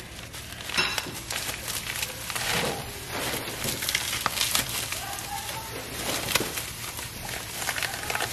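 Plastic wrapping crinkling and rustling, with snips of scissors, as the plastic bag around a tub of seasoning is cut open by hand.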